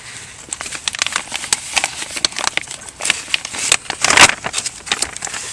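Clear plastic bag crinkling and rustling in the hands as a used, oil-soaked toilet paper filter roll is put into it, with the loudest rustle about four seconds in.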